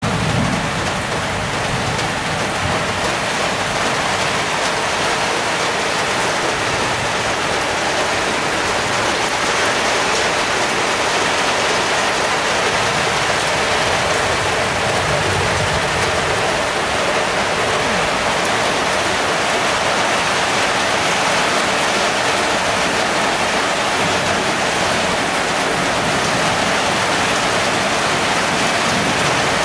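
Heavy rain falling steadily in a downpour, an even hiss of rain on surfaces.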